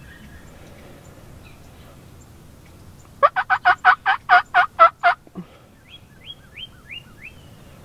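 Wild turkey calling: a rapid series of about a dozen loud notes lasting about two seconds, starting about three seconds in. About five faint, high, falling chirps follow.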